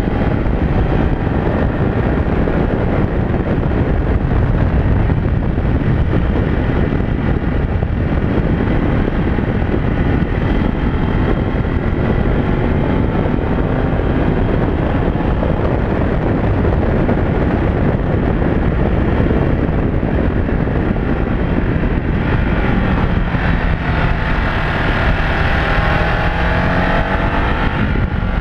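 Ducati DesertX's 937 cc V-twin engine running under way, its pitch rising and falling with the throttle, buried in heavy wind rush on the onboard camera's microphone. The engine is still in its break-in period.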